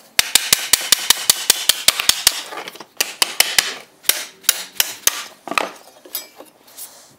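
Steel hammer striking a punch to drive old bolts out of an iron strap on a wooden board: a quick run of sharp metallic taps, about six or seven a second, for about two seconds. The taps then go on slower and more spaced, and grow weaker near the end.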